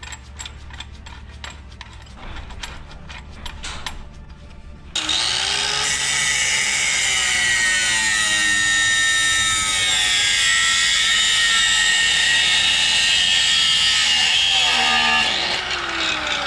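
Light clicking as the steel exhaust header pipe is clamped in the vise of a small abrasive chop saw. About five seconds in the saw starts with a loud grinding whine and cuts through the pipe for about ten seconds, then its pitch falls as it winds down near the end.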